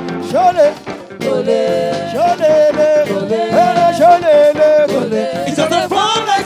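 Live band playing with a lead voice singing a held, bending melody over it.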